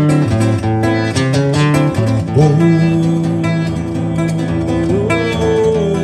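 Live samba from a small group: a guitar picking a melody over pandeiro and hand-drum percussion. A long held note with upward slides comes in about two seconds in.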